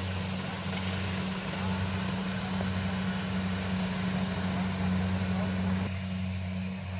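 Kubota DC-70 combine harvester's diesel engine running at a steady drone, with the rushing noise of its working machinery over it. The higher rushing noise falls away about six seconds in while the engine drone carries on.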